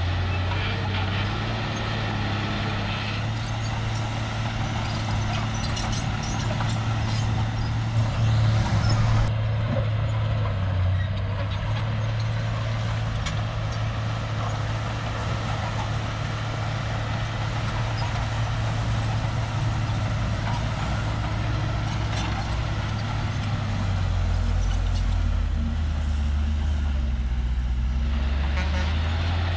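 Shantui crawler bulldozer's diesel engine running steadily as it pushes soil, with a brief louder burst about eight seconds in and a deeper engine note for a few seconds near the end.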